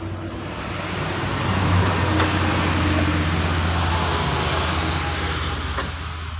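A motor vehicle's engine passing by: a steady low engine hum that swells about two seconds in, then fades away near the end.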